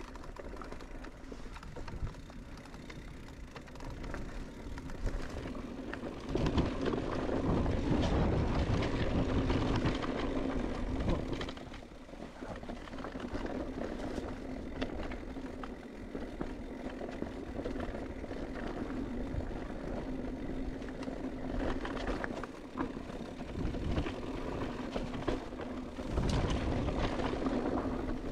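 Electric mountain bike ridden over a rough trail: tyres rolling over gravel and rock with rattles and knocks from the bike, wind on the microphone and a steady hum. It gets louder and rougher twice, about a quarter of the way in and again near the end.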